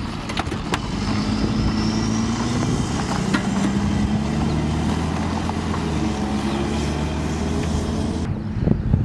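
Jackal 2 armoured vehicle's diesel engine pulling away across gravel, building about a second in and then running steadily under load. Shortly before the end the engine gives way to gusty wind rumble on the microphone.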